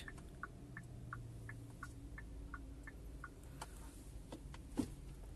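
Hyundai Verna's hazard-light indicator ticking in an even tick-tock, about three ticks a second, stopping after about three seconds. A few sharp clicks follow, the loudest near the end.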